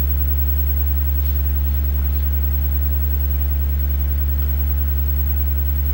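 Loud, steady electrical mains hum, a low buzz with a ladder of overtones above it.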